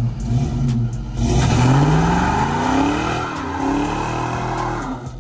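Car engine running, then revved once about a second in: the pitch climbs for about two seconds and falls back toward idle.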